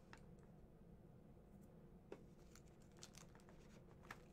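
Near silence, with a few faint clicks and rustles from hands working a collectible figure out of its plastic packaging tray.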